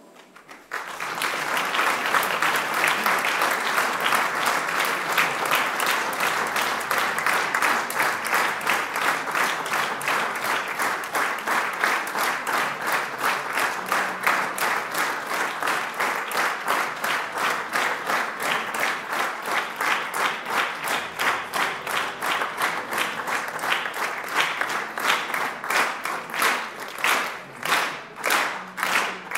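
Audience applause in a theatre hall, breaking out suddenly just under a second in and continuing dense and steady, then settling into even, rhythmic clapping near the end.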